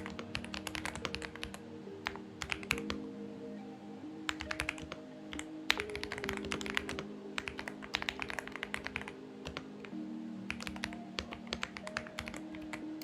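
Typing on a Xinmeng X98 mechanical keyboard: rapid bursts of key clicks broken by short pauses. Soft background music with sustained chords plays underneath.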